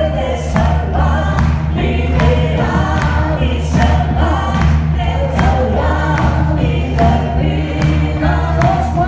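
Music with a choir singing over a steady bass and a regular beat.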